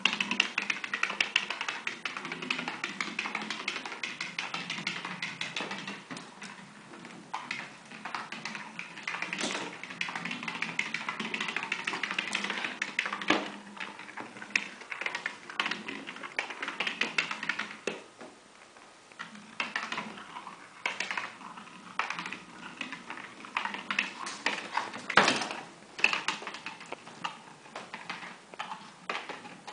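Plastic rodent exercise ball rolling across a hardwood floor with a pet mouse running inside: a continuous fine rattling and ticking, with a few sharper knocks and some quieter moments.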